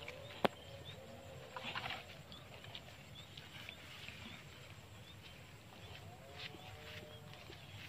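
Quiet field ambience: grass and rice stalks rustling against a moving phone, with a sharp click about half a second in. Faint short high chirps sound now and then.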